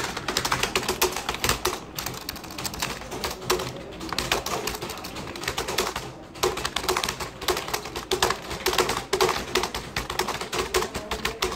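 Fast typing on a desktop computer keyboard: rapid runs of key clicks, with short pauses about two, four and six seconds in.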